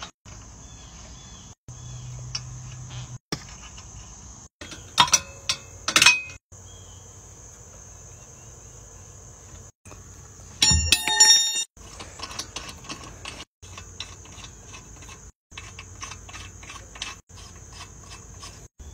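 Steel lug nuts being threaded onto a car wheel's studs and run on with a socket: light metallic clicks, a loud ringing metal clink a little past the middle, then a run of small fast ticks. The sound drops out abruptly several times.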